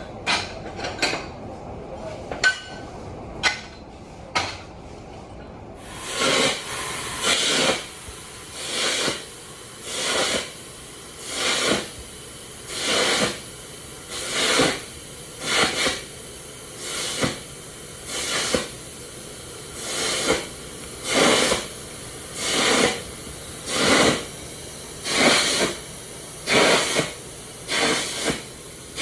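Arc welding in short repeated bursts: after a few metal clicks and knocks, the arc sizzles on and off about once every second and a half, roughly twenty times.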